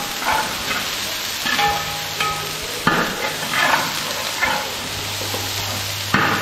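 Crushed garlic and ginger frying in hot coconut oil in a large pan, sizzling steadily while being stirred, with scraping strokes about once a second.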